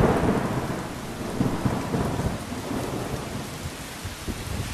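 A roll of thunder, loudest at the start and fading away, over steady rain.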